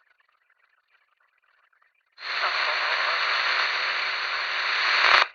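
Police radio squelch opening about two seconds in to a steady burst of static hiss with no voice. It lasts about three seconds and cuts off abruptly.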